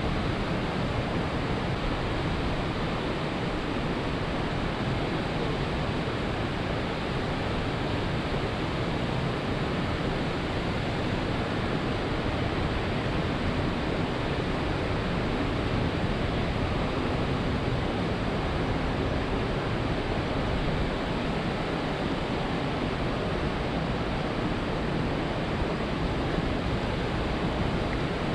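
Steady rushing outdoor noise, even throughout, with no distinct events.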